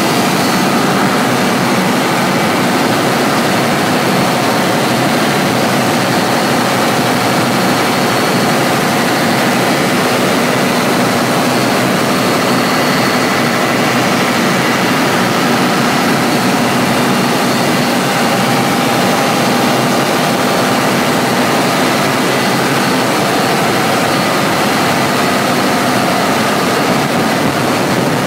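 Caterpillar 3516 V16 diesel engine of a standby generator set running steadily, a loud, even engine noise with a few constant high tones over it.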